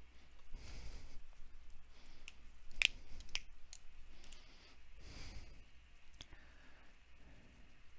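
Two soft sighing breaths, about half a second in and again around five seconds in, with a few sharp clicks between them. The loudest click comes just under three seconds in.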